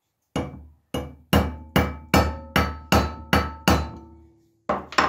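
Hammer striking a metal pin to drive a rivet through a machete's wooden handle, metal on metal: nine quick blows, about two or three a second, each with a short metallic ring. After a pause, two more blows come near the end.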